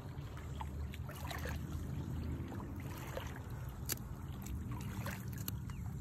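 Shallow water lapping and splashing lightly around a bream held in it by a lip grip, with scattered small drips and splashes over a low steady rumble.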